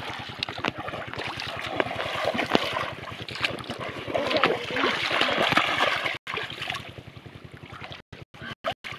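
Shallow water splashing and sloshing as people wade through flooded field water and push a bamboo-framed scoop net through it. The sound cuts out briefly several times near the end.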